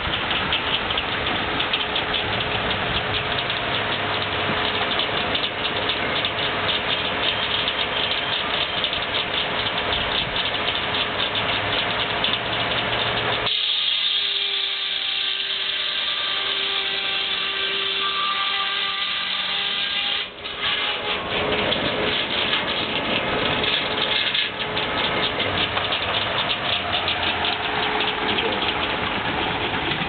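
Case 110 steam traction engine belt-driving a circular sawmill, running with a fast, even pulse. About halfway through, a louder, high-pitched hiss with a wavering tone lasts about seven seconds as the saw cuts through the log, then the steady running sound returns.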